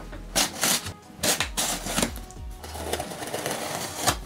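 A folding knife blade slicing through packing tape along a cardboard box's seam: several short scratchy rasps, then a longer drawn-out cut about three seconds in, ending in a sharp click.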